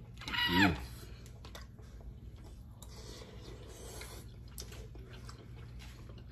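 A short, loud vocal cry that falls steeply in pitch about half a second in. After it comes quiet chewing, with a few light clicks of metal spoons against glass bowls.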